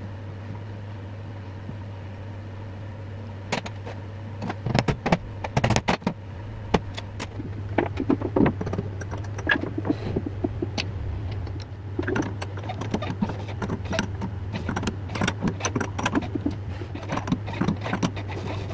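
Irregular metal clinks and knocks of a steel workpiece being fitted into a lathe's four-jaw chuck and the jaws tightened, starting a few seconds in, over a steady low hum.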